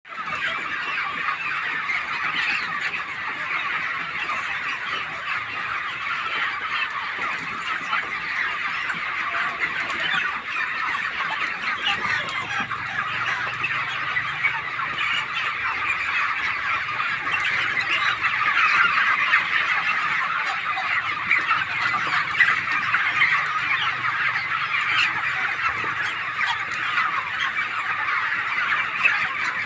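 A large flock of white broiler chickens calling all at once: a dense, continuous din of many short overlapping cheeps.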